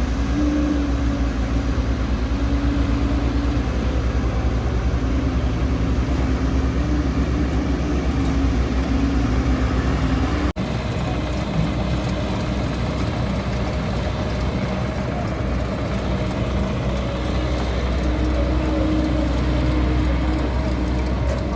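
Diesel engine of a JCB backhoe loader running steadily, its pitch rising and dipping a little as it works. The sound breaks off for an instant about halfway through.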